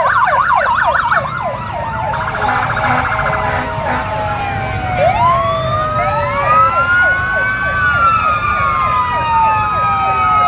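Police vehicle sirens, several at once: a fast yelp for about the first second, then slow wails rising and falling, overlapping one another.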